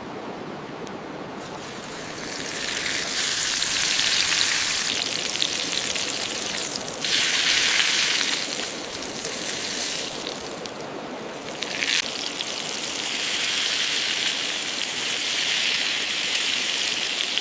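Ribeye steak sizzling in a hot oiled pan, a steady hiss that swells louder in several stretches.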